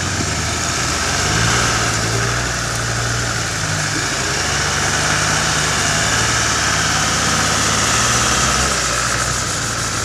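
Land Rover Defender engine running at low revs as the truck crawls through a deep mud hole, with a steady higher whine over the engine note.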